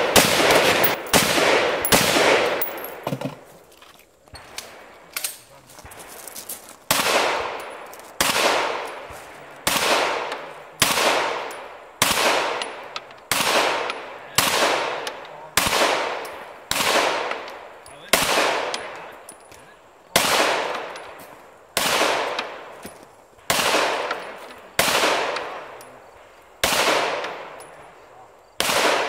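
Pistol shots from a SIG Sauer P320, fired one at a time at a steady pace of about one a second, each shot trailing off in a short echo. It opens with a quick burst of several shots, then a pause of about three seconds before the steady firing begins.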